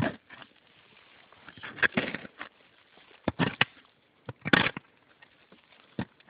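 Shovel blade digging into leaf-covered forest soil: about five separate scrapes of the blade going into the dirt and leaves, irregularly spaced.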